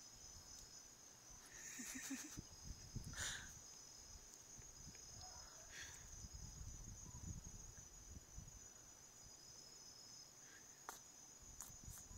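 Faint, steady high-pitched chirring of crickets, with a low rumble underneath and a few brief soft noises about two and three seconds in.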